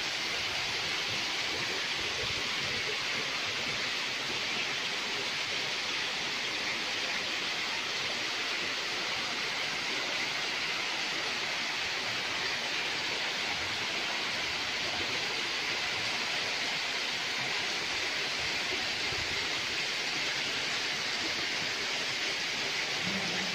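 Steady rushing of water from a shallow stream running over stones, unbroken and even in level throughout.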